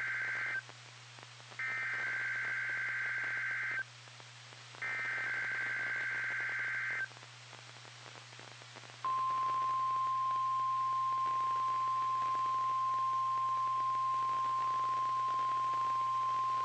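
NOAA Weather Radio SAME header for a Required Weekly Test: the end of one burst of warbling two-tone data, then two more bursts of about two seconds each, a second apart. After a pause of radio hiss, the steady 1050 Hz warning alert tone comes on about nine seconds in and holds.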